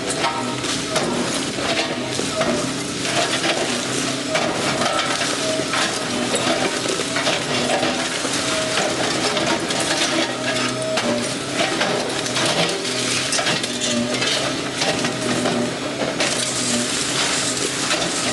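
Diecast metal toy cars and trucks clinking and rattling against each other as they are handled, a dense run of small clicks and clatters.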